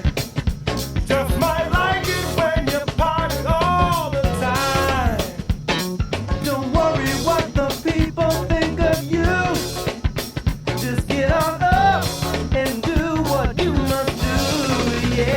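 A full-band rock song playing, with a drum kit keeping a steady beat under bass and a melodic lead line that bends in pitch.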